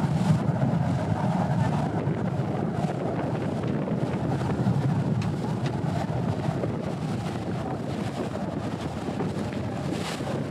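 River water taxi underway: a steady low rumble of its engine and water rushing past the hull, with wind buffeting the microphone at the bow.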